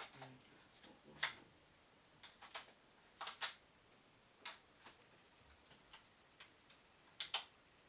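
About ten faint, irregularly spaced clicks and taps of rechargeable batteries being pushed into a plastic battery holder, the sharpest one about a second in.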